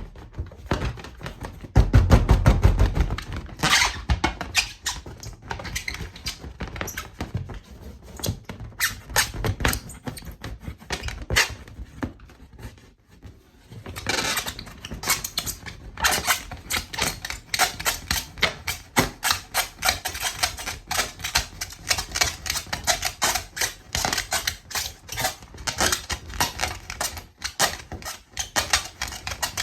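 Rubber balloons being handled and popped: a rapid, uneven run of sharp clicks and snaps, several a second, with a louder, deeper burst about two seconds in and a brief lull about halfway through.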